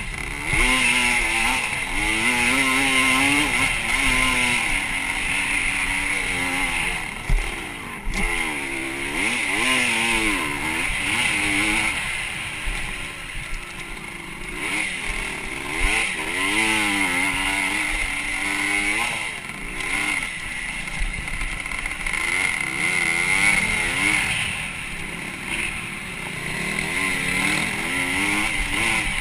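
Motocross dirt bike engine, heard from the bike being ridden, revving up and dropping back over and over as the throttle opens and closes around the track. A sharp knock sounds about seven seconds in.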